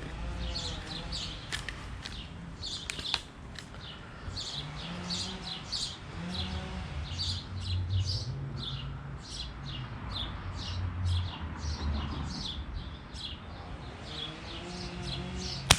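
Small birds chirping over and over, a few calls a second, with a low rumble underneath. Near the end comes a single sharp crack: a shot from the Crosman American Classic .177 pump pellet pistol.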